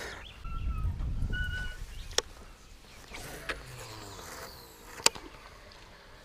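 Short whistled bird calls repeated a few times over quiet river ambience, with a low rumble in the first two seconds. Two sharp clicks come about three seconds apart while a baitcasting rod is cast and reeled in.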